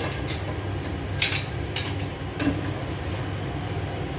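Metal spatula scraping and clinking against a cooking pan in a few short strokes, over a steady low hum.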